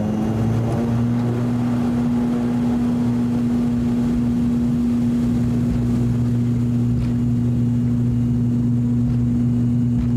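Cabin sound of an ATR 42-600 turboprop on its takeoff roll: the PW127 engines and six-bladed propellers at takeoff power give a loud, steady, deep drone that settles in within the first second.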